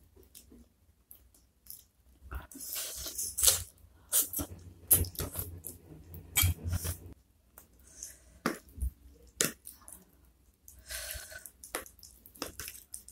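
Close-miked wet chewing and smacking of soft-cooked chicken feet in a spicy sauce, in irregular bursts with sharp clicks. The densest run comes a few seconds in, and there is another near the end.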